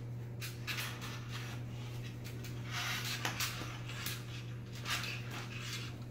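Metal curtain clip rings clicking and scraping as they slide onto a tension rod: short, irregular clicks over a steady low hum.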